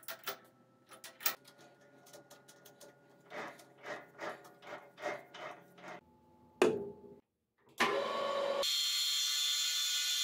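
Metal lathe: a string of light metallic clicks and knocks as the cutting tool is set and the tool post is clamped, then a loud knock about six and a half seconds in. Near the end the lathe starts and runs with a steady, high-pitched hissing noise.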